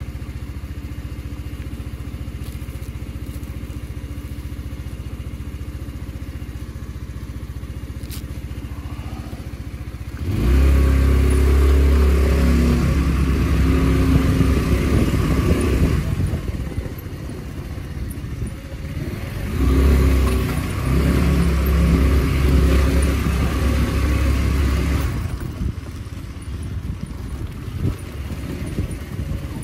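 Motor vehicle engine running steadily at a low hum, then about ten seconds in getting much louder as the vehicle pulls away, its engine speed rising and falling a few times as it drives on.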